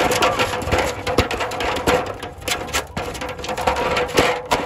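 A live fish flapping and slapping against the inside of a shallow basin, making a rapid, irregular run of wet knocks and thuds. A steady hum sits underneath.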